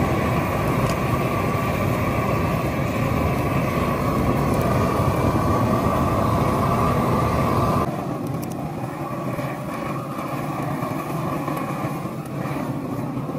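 Propane torch burning with a steady rush of gas and flame; about eight seconds in it drops suddenly to a quieter level.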